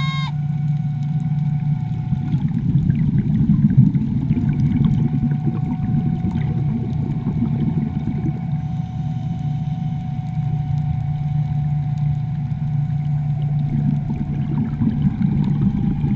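Steady low drone of a boat engine heard underwater through a GoPro's housing, with a rushing, bubbling noise that swells a few seconds in and again near the end.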